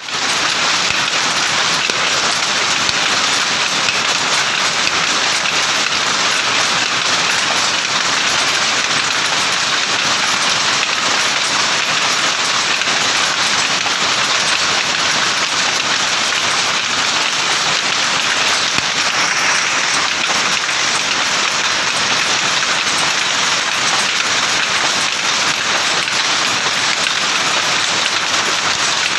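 Power loom running and weaving, a loud, dense, steady mechanical clatter without pause.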